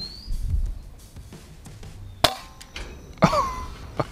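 Suppressed report of an FX Dreamline PCP air rifle firing a pellet about two seconds in, then a second sharp crack about a second later. Music with a drum beat plays faintly underneath at the start.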